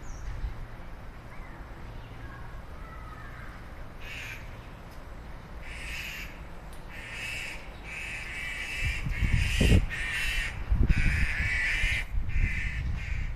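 A bird giving a run of short repeated calls, starting about four seconds in and coming roughly every second or less in the second half. A low rumble from about nine seconds in makes the loudest moments.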